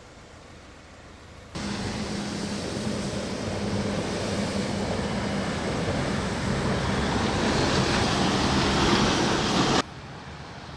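Floodwater rushing through a culvert: a loud, steady rush with a low hum beneath it, slowly growing louder. It starts suddenly about one and a half seconds in and cuts off shortly before the end.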